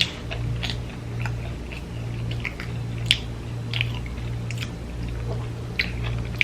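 A person chewing food close to the microphone: irregular wet mouth clicks and smacks, a few a second, over a steady low hum.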